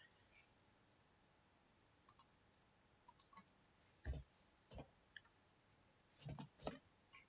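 Faint, scattered clicks of a computer keyboard and mouse while code is edited: a few sharp ticks from about two seconds in, then heavier, duller key presses around four seconds and twice near six to seven seconds.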